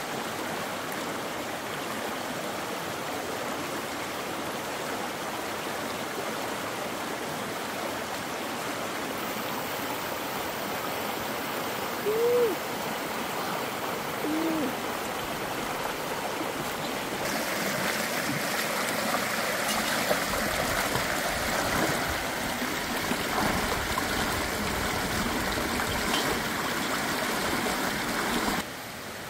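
Steady rush of running water, like a stream. About twelve and fourteen seconds in come two short hooting calls, the second lower. The rushing grows louder and brighter a little past halfway, then cuts off abruptly near the end.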